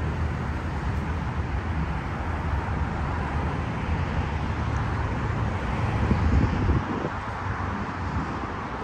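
Steady road traffic noise from a busy multi-lane highway, heaviest in the low rumble, which swells louder about six seconds in.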